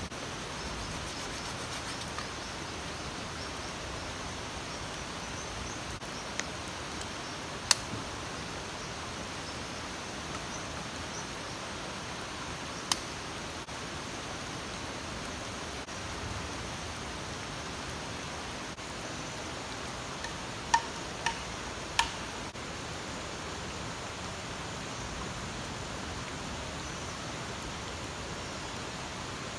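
Steady, even hiss of falling water, with a few sharp knocks scattered through it, three of them close together about two-thirds of the way in.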